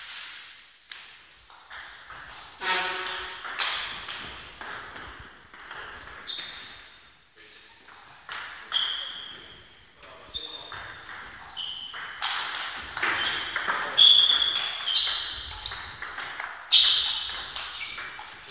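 Table tennis ball being struck by bats and bouncing on the table: sharp clicking pings, scattered at first, then a quick run of hits in a rally in the second half.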